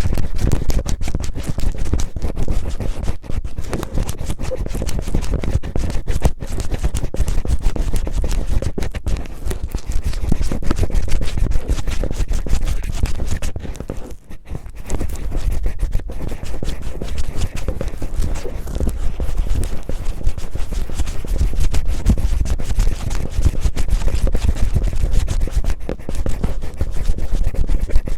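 Cellophane crinkled and rubbed roughly against a close microphone in the manner of ASMR ear cleaning: a dense, continuous crackling and scratching, with a brief lull about fourteen seconds in.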